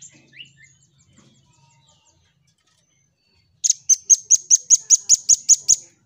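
Velvet-fronted nuthatch calling. A few faint high ticks come first, then a little past halfway a loud, fast series of about eleven sharp, high notes at roughly five a second.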